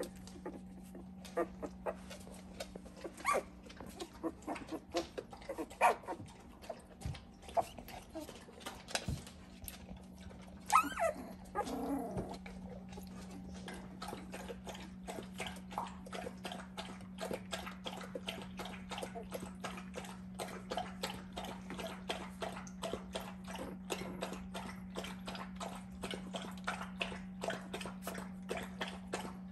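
Two-week-old puppies whimpering and squeaking in short high cries, with one louder rising cry about eleven seconds in, over many rapid soft clicks and a steady low hum.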